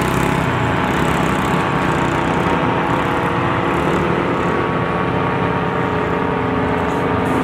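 Small engine running at a steady speed, a droning hum that barely changes in pitch.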